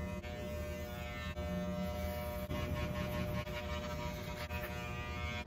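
Wahl electric hair clippers buzzing steadily as they are run along the neck, cutting beard hair.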